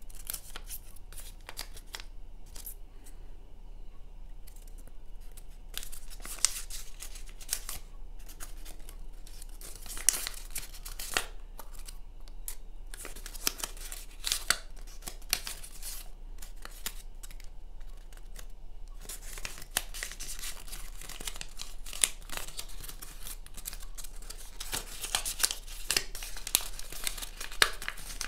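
Origami paper rustling and crinkling as hands fold and crease it, with scattered sharp crackles; the rustling gets busier about two-thirds of the way through.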